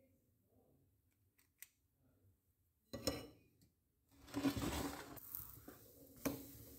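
Utensil handling at a nonstick frying pan as a dorayaki pancake is lifted and turned: light ticks, a brief scrape about three seconds in, a longer scraping rustle about four seconds in, and a sharp tap near the end.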